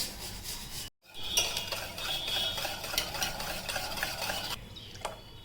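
A utensil stirring and scraping in a mixing bowl, with small clinks against the bowl. The sound cuts out abruptly just before a second in, resumes, and thins out near the end.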